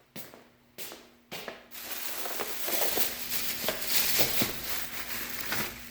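Packaging being handled and crinkled, likely around a new gel bicycle seat pad: a few separate clicks, then about four seconds of steady crackling and rustling.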